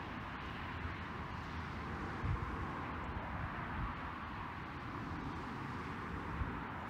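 Steady outdoor background noise, an even hiss, with a brief low thump about two seconds in and again near the end.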